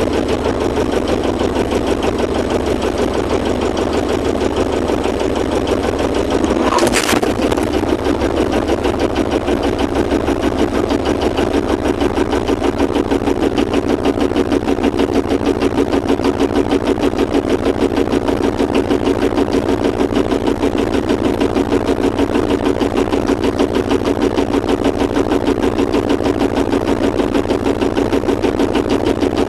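A sailboat's engine running steadily with a fast, even throb. A brief burst of hiss comes about seven seconds in.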